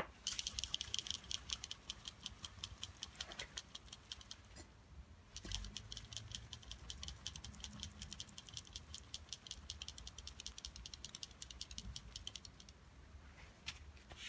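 Aerosol can of cleaner being shaken, the mixing ball inside rattling in quick even clicks. Two spells of shaking with a short pause between them.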